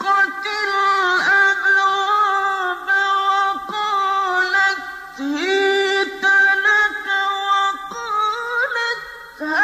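Solo voice in melodic Quran recitation (tajweed), unaccompanied, drawing out long held notes with ornamented turns and a short pause for breath near the end.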